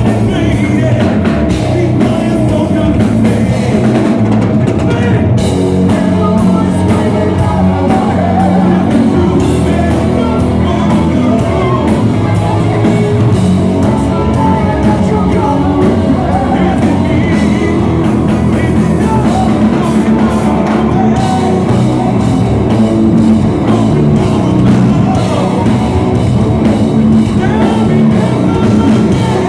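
Hard rock band playing live and loud: drum kit, distorted double-neck electric guitar and a male lead singer, heard from the audience.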